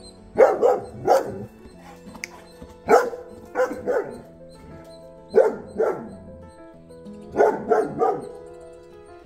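Saint Bernard barking aggressively in four bursts of two or three loud barks, warning off an intruder.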